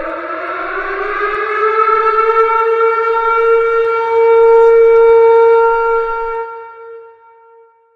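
Civil defense siren winding up, its pitch rising for about four seconds and then holding as it grows louder, before fading away about six to seven seconds in.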